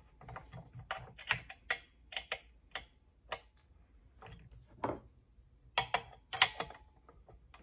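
Irregular light metallic clicks and taps of a hex key and a combination wrench working a wheel's axle bolt and lock nut, a few a second at first, then sparser, with a louder cluster of clanks about six seconds in.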